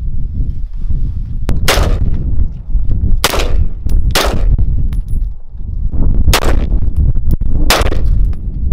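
Five semi-automatic shots from an AR-15 rifle chambered in 223 Wylde with a 16-inch barrel. Each shot is a sharp crack, fired singly and irregularly, one to two seconds apart, over a steady low rumble.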